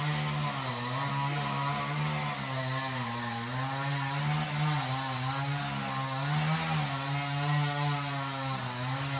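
A two-stroke chainsaw engine running steadily, its pitch dipping slightly now and then.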